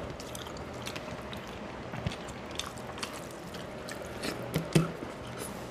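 Eating by hand: chewing and mouth sounds with the soft squish of fingers mixing rice and fish curry on a steel plate, and scattered light clicks, a few sharper ones about four and a half seconds in.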